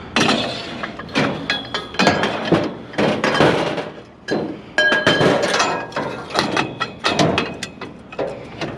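Scrap metal pieces clanking and banging together as they are handled and loaded, with a string of sharp metallic hits, several of them ringing briefly.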